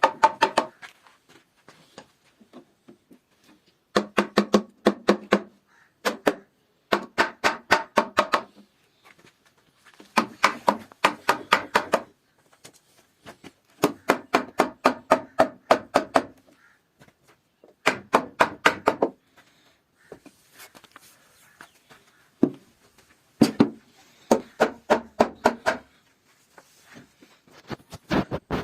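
Bursts of rapid knocking strikes, roughly seven a second, each burst lasting one to two seconds, with pauses of a second or more between bursts.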